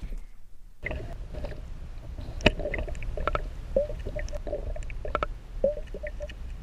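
Water heard through a submerged camera: a muffled low rumble with bubbles gurgling, short pitched blips and scattered clicks, setting in about a second in.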